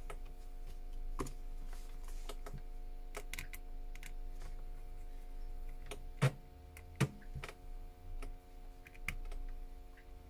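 Irregular light clicks and taps of hands and small tools working on an iPhone's tiny parts, with two sharper clicks about six and seven seconds in, over a steady low electrical hum.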